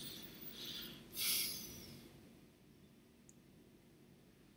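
A few soft breaths or a sigh close to the microphone in the first two seconds, then near silence with one faint click.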